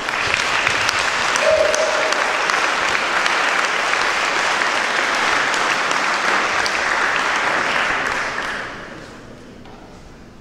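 Audience applauding, dying away after about eight seconds.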